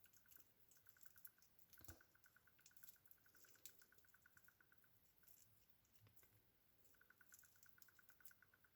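Near silence, with faint scattered clicks from hands working a soft, plasticine-like homemade slime mixture.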